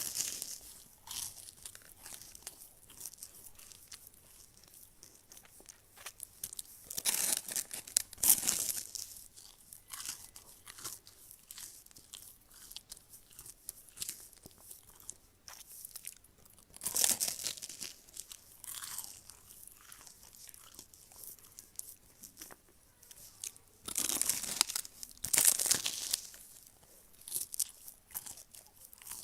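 Close-miked eating of crunchy food: crisp crunching bites in three louder spells, with softer chewing clicks between.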